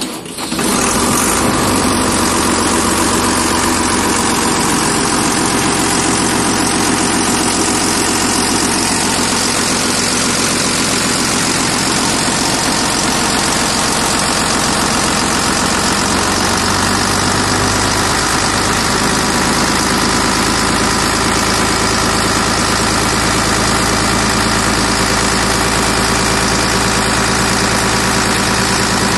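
Diesel engine of a farm machine starting, catching at once, then idling steadily.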